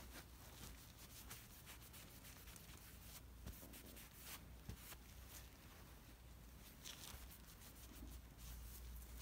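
Faint rubbing and wiping strokes of a shop towel on an engine main bearing cap and bearing shell as they are cleaned, over a low hum of room tone.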